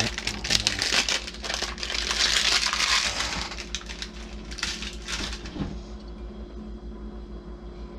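Packaging rustling and crinkling as parts are handled, with scattered small clicks and knocks, over a steady low hum. The rustling is loudest in the first three seconds and dies down after about six seconds.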